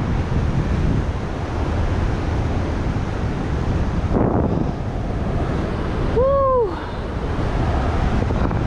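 Wind rushing over the camera's microphone during a speed-wing flight, a steady loud buffeting. About six seconds in, a short pitched sound rises and falls once over about half a second.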